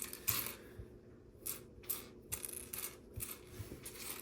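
Loose plastic LEGO pieces clicking and rattling against each other as a hand sifts through a pile of parts, in a string of irregular light clicks and rustles.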